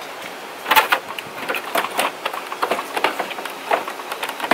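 Plastic dashboard of a 1989 Honda Civic hatchback clicking and knocking in irregular bursts as it is tugged and worked loose, the loudest knock about a second in; the dash is still hung up on something behind it.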